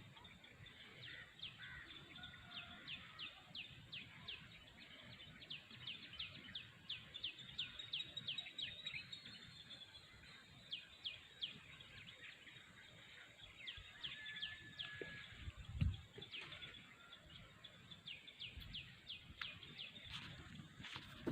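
A bird giving long runs of short, high chirps, several a second, each sweeping downward, with short pauses between runs. A single low thump comes about three-quarters of the way through.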